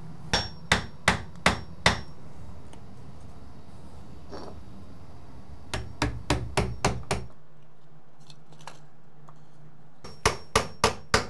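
Hammer tapping pressure-treated wood shims in between a door jamb and its framing. There are three runs of sharp taps: five at about two and a half a second, a quicker run of about six around the middle, and another run starting near the end.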